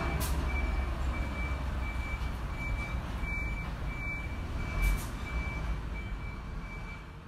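Electronic beeping: a single high tone repeating a little under twice a second, steady and evenly spaced, over a continuous low rumble, with one low thump about five seconds in.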